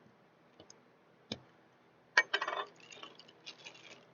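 Hard little clicks and a short clattering rattle of a Funko Soda can and its packaging being handled and opened: one sharp click about a second in, a burst of clicks a little after two seconds, then a few lighter ticks.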